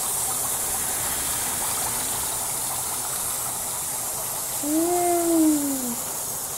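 Dry ice fizzing and bubbling in water in a kitchen sink, with tap water running: a steady rushing hiss. About five seconds in, a short voice sounds one note that rises and then falls.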